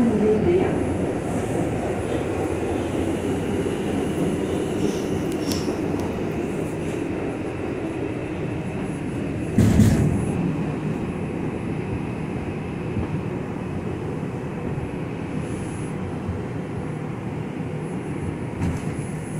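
R142 subway train running through the tunnel: a steady rumble of wheels and motors that eases gradually as the train slows into a station. A single loud knock comes about halfway through.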